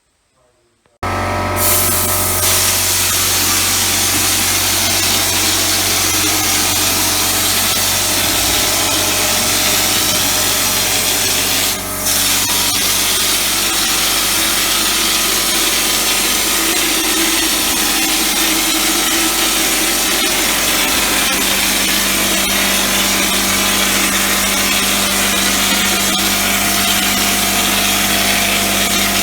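An electric power tool running continuously with a steady motor hum, starting about a second in, with one brief dip partway through.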